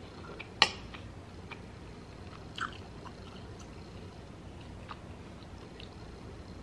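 A person chewing a mouthful of tri-tip steak, with soft mouth clicks throughout. A sharp click about half a second in and a smaller one about two seconds later.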